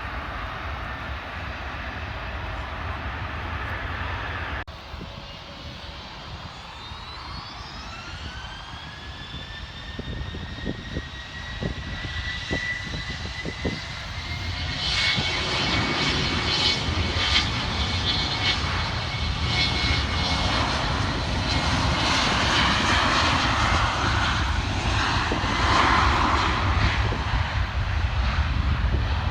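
Jet airliner's turbofan engines spooling up: a whine rises in pitch and settles into a steady tone, then the engine noise grows much louder and fuller, as at takeoff power. A sudden cut about five seconds in breaks the sound.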